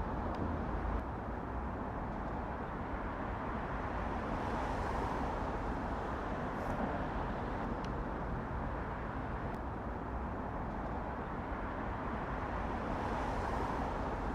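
Steady road traffic noise from nearby busy roads, swelling twice as vehicles pass.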